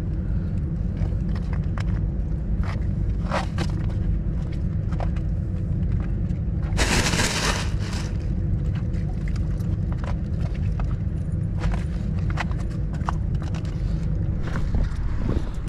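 Wind buffeting the microphone: a steady low rumble with scattered knocks and scrapes, and a louder rushing gust about seven seconds in.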